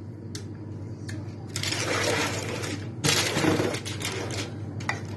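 A metal spoon spreading and pressing minced meat inside a stainless steel cake ring on parchment paper: a few light clicks, and two stretches of scraping and rustling in the middle.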